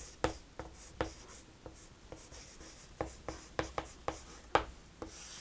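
Chalk writing on a chalkboard: short sharp taps and scrapes as capital letters are written, a few in the first second, a pause, then a quicker run of strokes.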